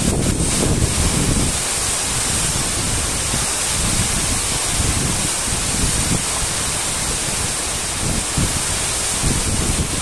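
Waterfall's steady rushing of falling water, with wind buffeting the microphone, heaviest in the first second or so.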